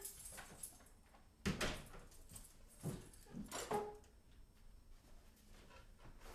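A few light knocks and clunks, spread over several seconds, as a board or tray is handled and set down on a counter, over quiet room tone.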